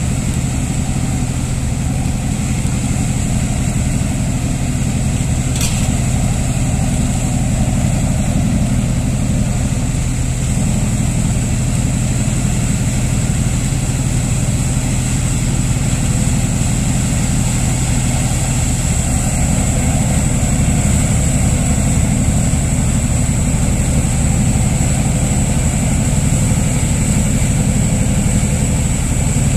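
A motor running steadily: a low, even hum with a constant high-pitched whine above it, and one faint click about six seconds in.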